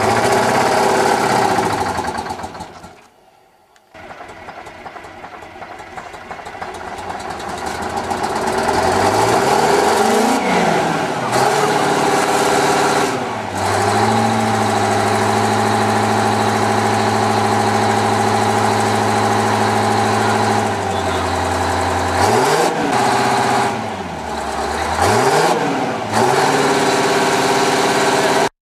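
Big Bud 16V-747 tractor's Detroit Diesel 16V92T, a turbocharged and supercharged 16-cylinder two-stroke diesel, running and revving. The sound drops almost to nothing for about a second some three seconds in. The engine then climbs, is held at high revs for about seven seconds, and is blipped up and down a few times.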